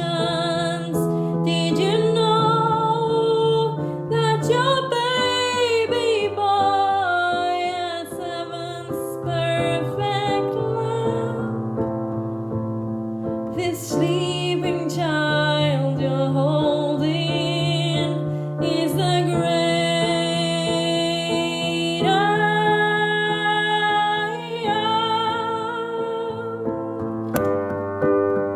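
Music: wordless singing in layered harmonies, with gliding, ornamented vocal lines over a steady low bass note and sustained keyboard-like chords.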